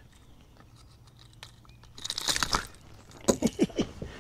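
Handling sounds as a landed largemouth bass is unhooked from a topwater popper in a boat: a short crackling scuffle about two seconds in, then a quick run of sharp clicks and knocks.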